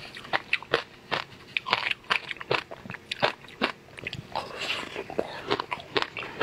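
Close-up biting and chewing of a crumb-coated frozen ice pop: sharp crunches about two or three a second, with a longer crackling chew about four and a half seconds in.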